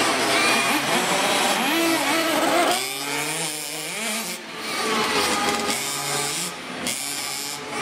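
Radio-controlled cars' motors revving, their pitch rising and falling over and over.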